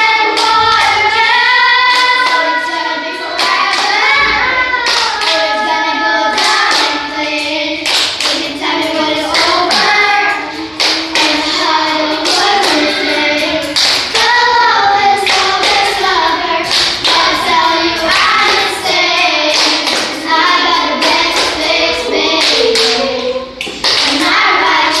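A group of children singing a song together, with sharp percussive claps and taps keeping the rhythm throughout.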